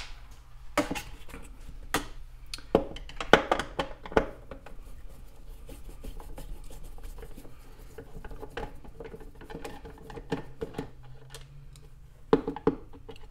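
Security Torx screwdriver working screws out of a coffee machine's plastic base: sharp clicks and small knocks of the tool and screws against the plastic, thickest in the first few seconds, then lighter scraping and occasional clicks, with a few more knocks near the end.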